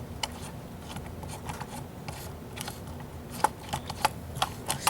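Light scrapes, taps and clicks of cardboard pieces being handled and worked with a craft tool, coming more often in the last second and a half.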